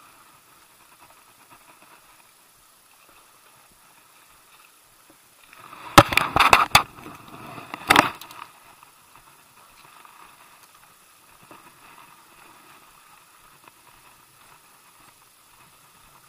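Spinning reel being wound in steadily, a faint whirr, as a hooked squid is brought up. About six seconds in comes a loud cluster of sharp clicks and knocks, and a single sharp knock follows about two seconds later.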